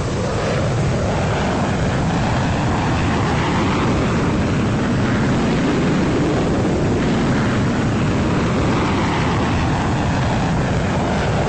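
F-22 Raptor's twin turbofan jet engines roaring as it flies past, a loud steady rush with a slowly sweeping, phasing tone as the aircraft moves.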